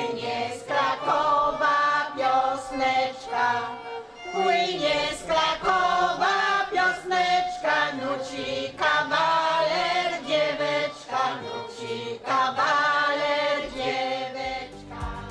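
A choir of mostly women's voices singing a song together. Near the end the singing breaks off and other music with a bass line takes over.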